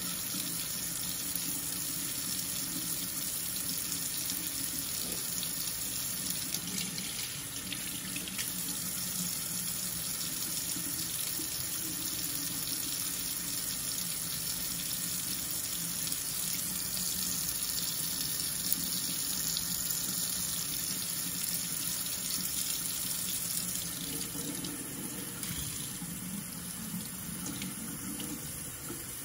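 Kitchen faucet running in a steady stream into a stainless steel sink; the water falls on hands and, near the end, on hair held under the spout.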